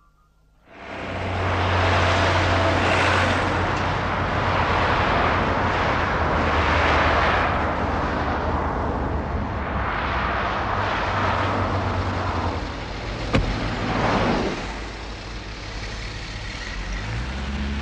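Road traffic: cars passing one after another, each swelling and fading, over a steady low engine hum. A single sharp click about thirteen seconds in.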